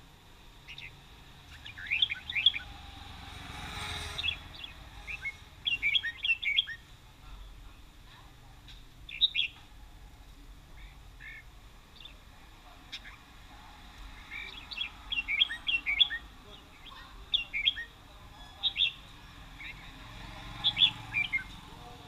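Caged red-whiskered bulbuls singing: bursts of quick, bright chirping phrases every few seconds, with short pauses between them.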